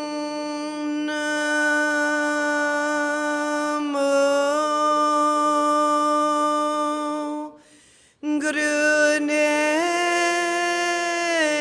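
A woman chanting a mantra solo in long, held notes. The voice breaks off for a breath about eight seconds in, steps up in pitch shortly after, and comes back down near the end.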